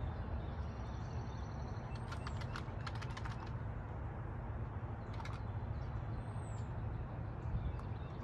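Light plastic clicks from handling a small D-Con enclosed mouse trap, a cluster about two to three seconds in and a few more about five seconds in, over a steady low hum. A couple of faint high chirps.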